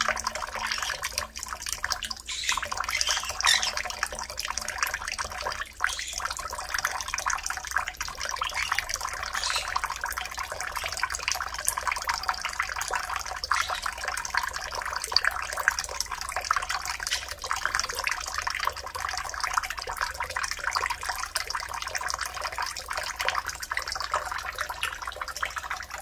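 Thin stream of tap water from a kitchen faucet pouring into a stainless steel bowl of water in a sink, a steady splashing patter.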